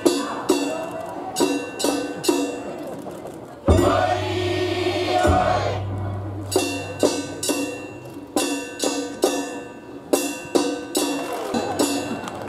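Festival music with sharp metallic percussion strikes in a repeating pattern, about two to three a second. About four seconds in, a louder burst of noise with a held tone covers the beat for a second and a half, then the strikes resume.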